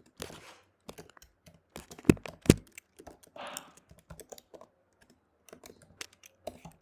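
Typing on a computer keyboard: irregular key clicks, with two louder key strikes about two seconds in.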